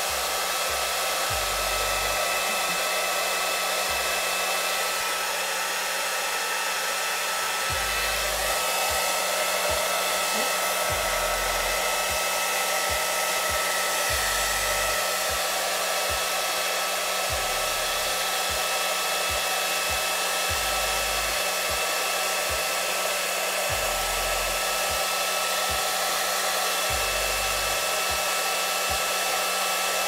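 Handheld blow dryer running steadily, its nozzle blowing into a cut plastic bottle: an even rush of air with a steady whine over it.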